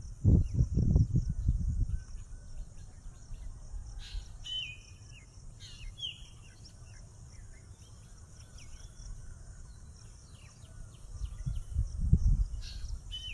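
Birds chirping and calling in short repeated phrases, over a steady high insect drone. Loud low rumbling on the microphone in the first two seconds and again near the end.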